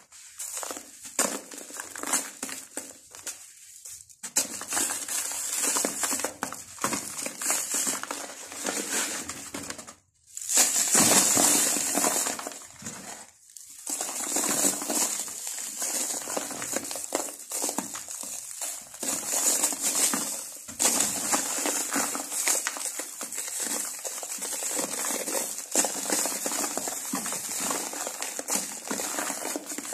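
Fingers crumbling and rubbing dry sand-cement dirt, the powder and grit sifting onto a sheet of brown paper with a continuous crackly, gritty rustle. It stops briefly twice near the middle.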